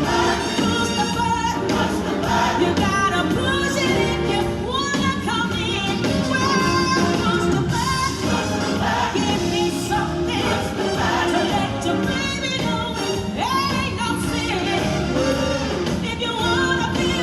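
Upbeat pop-jazz song with singing and a brass-and-rhythm backing, playing continuously as a dance routine's music.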